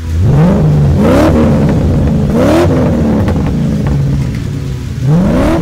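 Race-car engine sound effect, loud and cutting in suddenly: four revs that climb in pitch and level off, three of them followed by a rushing hiss.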